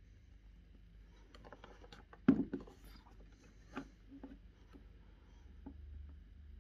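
Cardboard CPU-cooler box handled and turned over in the hands: light rubbing and tapping of fingers on the cardboard, with one sharper knock about two seconds in and a smaller one a second and a half later.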